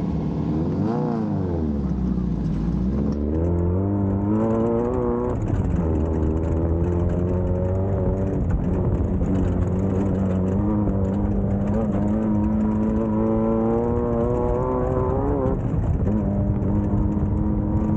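Air-cooled VW 1600 engine of a Class 1600 off-road race car under way: a quick rev up and down about a second in, then climbing in pitch and dropping back at several gear shifts, holding steady between them.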